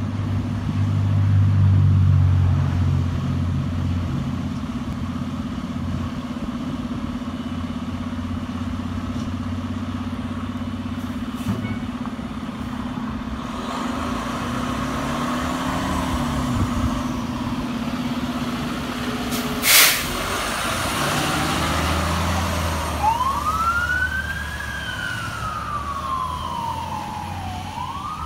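Fire engine's diesel engine running as the truck pulls out and moves off, with one short sharp blast about two-thirds of the way through. Then its siren starts wailing, rising and falling in slow sweeps.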